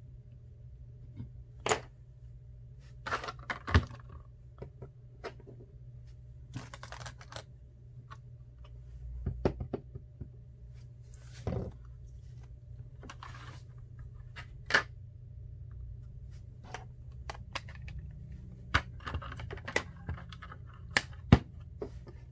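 Irregular light clicks and taps, with a few brief rustles, over a steady low hum.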